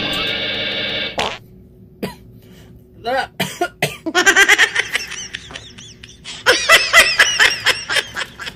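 A man coughing in several bouts of quick repeated coughs, with his hand over his mouth while eating.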